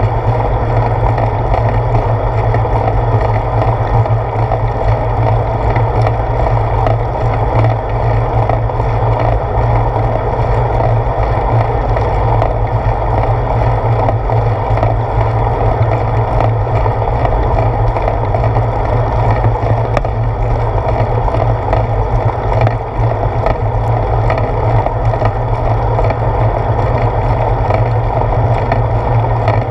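Steady rumble and rattle of a bicycle rolling over paved road, carried into a handlebar-mounted GoPro Hero 4 as vibration, with small ticks throughout.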